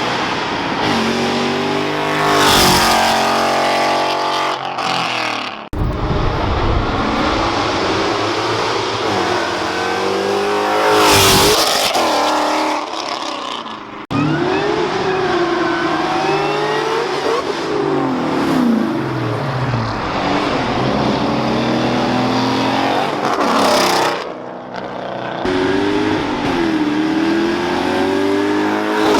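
Ford Mustangs' engines revving and accelerating hard past, their pitch climbing and dropping through the gears, in several short clips joined with abrupt cuts.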